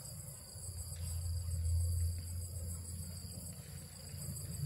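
Insects chirring steadily in several high-pitched tones, over a low steady hum.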